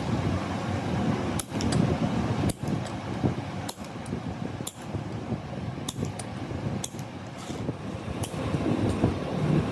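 Metal snips clicking shut about once a second while cutting the lead terminal posts of a lead-acid battery, over a steady low rumble.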